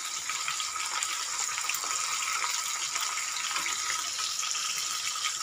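Pieces of marinated rohu fish shallow-frying in hot oil in a pan: a steady sizzling hiss with fine crackles, the fish nearly done and crisp.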